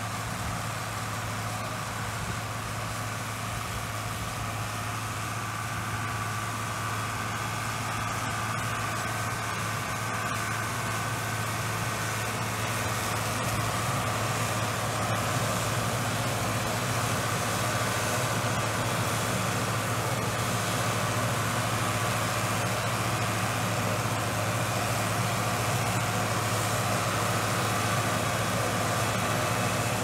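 John Deere tractor's diesel engine running steadily under load as it pulls a New Holland 640 round baler picking up hay. The sound grows somewhat louder about halfway through as the machines draw nearer.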